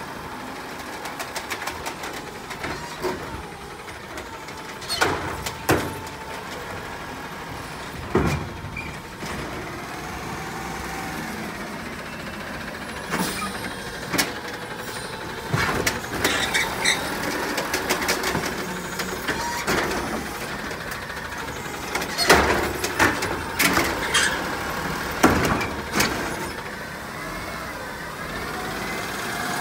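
Autocar automated side-loader garbage truck at work: its engine runs steadily with pitch rising and falling, under a dozen or so sharp bangs as the arm grabs carts and knocks them out into the hopper.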